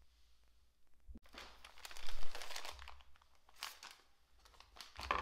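Paper rustling and crinkling in several bursts as art supplies and sheets are handled and shifted on a tabletop, the loudest burst about two seconds in, with a short tap about a second in.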